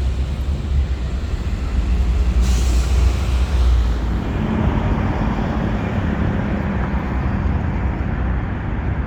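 City road traffic: a heavy vehicle's low engine rumble, with a short hiss about two and a half seconds in. After about four seconds the rumble gives way to a steady wash of passing traffic.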